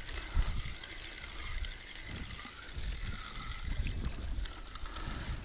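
Fishing reel being cranked to wind in a long-cast bottom-rig line: rapid fine clicking from the reel, with low bumps of handling.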